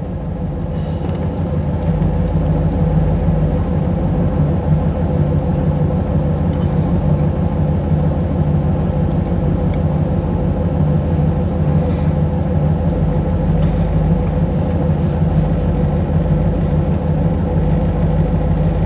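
1985 Camaro IROC-Z's 305 Tuned Port Injection V8 (LB9), fitted with a very mild Lunati cam, idling steadily in park while it warms up from a cold start, heard from inside the cabin. The low, even rumble grows a little louder over the first two seconds, then holds steady.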